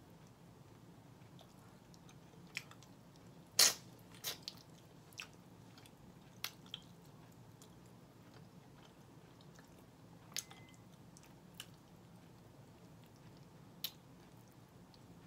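A person chewing smoked turkey neck meat, with scattered sharp wet clicks and smacks. The loudest click comes about a quarter of the way in.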